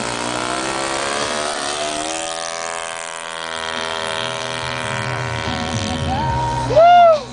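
Engine and propeller of a radio-controlled model Tucano at full power on its takeoff roll and climb-out, the pitch rising about two seconds in and then holding steady. Near the end comes a short, loud tone that rises and falls.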